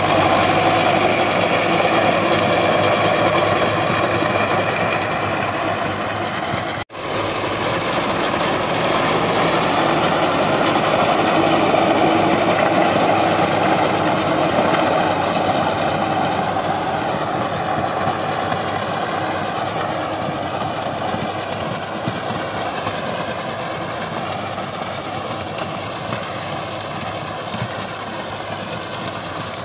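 Sonalika DI 750 tractor's diesel engine running steadily under load while pulling a rotavator through dry soil. It cuts out for an instant about seven seconds in, then fades slowly as the tractor moves away.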